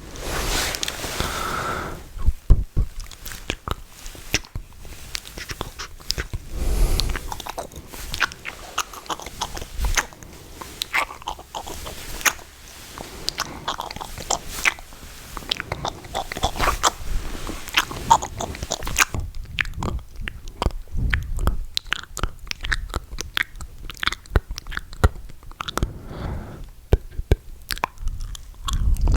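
Close-miked ASMR mouth sounds: dense, irregular wet clicks and smacks of the lips and tongue, with a couple of softer breathy stretches.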